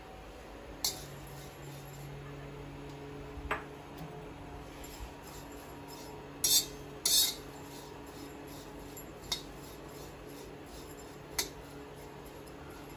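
A spatula stirring dried baby prawns dry-roasting in a metal pan, with a handful of short scrapes and knocks against the pan; the loudest two come close together about six and seven seconds in.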